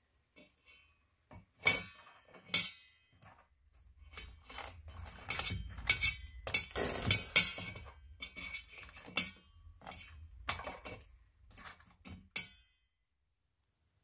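Kitchen pots, lids and metal utensils clinking and clattering: two sharp clinks near the start, then a busier stretch of clatter and handling that stops shortly before the end.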